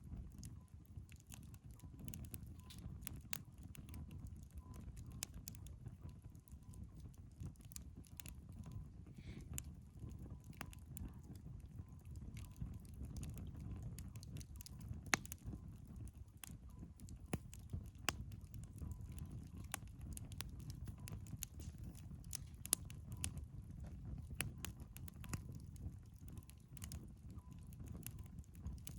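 Burning firewood crackling: irregular sharp pops and snaps, a couple of them louder, over a low steady rumble of the flames.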